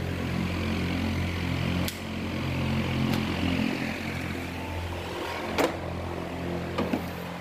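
Steady low hum of a running electric motor, with a few light clicks and knocks.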